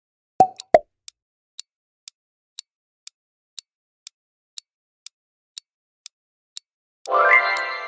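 Quiz-game sound effects: two quick pops, then a countdown timer ticking about twice a second. Near the end a ringing chime marks the countdown running out, then fades.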